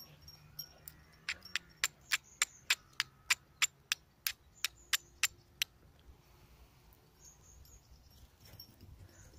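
Flint and steel: a striker steel struck against the flint about fifteen times in quick succession, sharp clicks roughly three a second that stop a little past halfway. The strikes throw sparks onto amadou tinder to start a fire.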